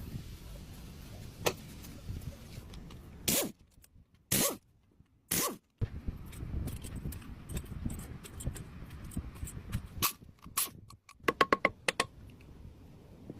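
Sharp metallic clinks and knocks over a low rumble. There are several loud knocks about three to five seconds in with near silence between them, then scattered lighter clicks, and a quick run of clinks near the end.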